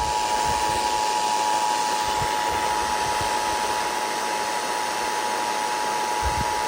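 Emergency Alert System two-tone attention signal (853 Hz and 960 Hz together), held steady over a loud hiss and stopping near the end, the alarm that announces an emergency broadcast.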